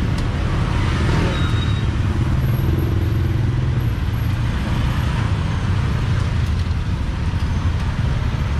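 Steady low rumble of street traffic, even and unbroken.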